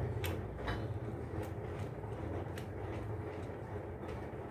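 Faint, scattered clicks and scrapes of a wire being pushed into a two-way switch's screw terminal and the terminal screw tightened with a screwdriver, over a steady low hum.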